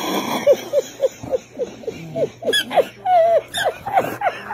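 A man laughing in a run of short, high-pitched falling 'ha' sounds, about three or four a second, with one drawn-out note about three seconds in.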